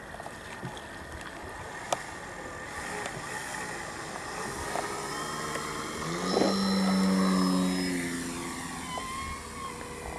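Electric motor and propeller of a radio-controlled STModel Beaver floatplane at full throttle on its take-off run from water: a pitched whine that rises as it speeds up, is loudest as it passes close about six to eight seconds in, then drops in pitch and fades as it climbs away.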